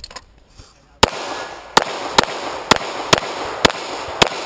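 A Rock Island Tac Ultra FS HC 9mm pistol fired seven times, the first shot about a second in and the rest at an even pace about half a second apart, each shot echoing briefly.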